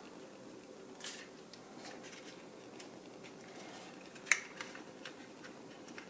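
Faint handling of a 2.5-inch SSD in its drive caddy, with a few small clicks as the caddy's knobs are pressed into the drive's screw holes; the loudest, sharpest click comes about four seconds in.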